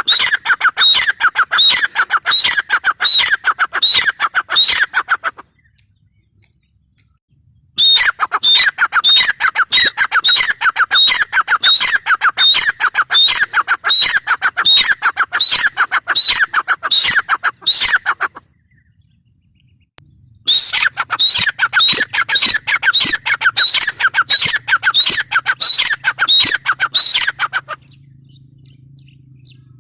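Grey francolin (teetar) calling: rapid, loud trains of sharp repeated notes, in three bouts of several seconds each with short pauses between them.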